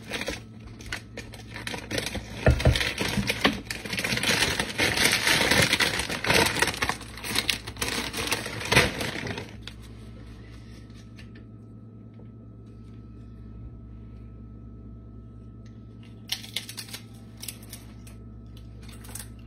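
Spatula scraping and stirring chopped pico de gallo in a glass bowl, with rustling and crackling, for about the first half. After that a quiet, steady hum, with a few short crunches near the end as a corn tortilla chip is bitten and chewed.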